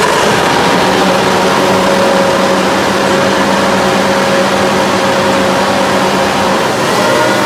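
Formula 1 cars on the starting grid, their 1.6-litre V6 turbo-hybrid engines held at steady revs together as the field waits for the start.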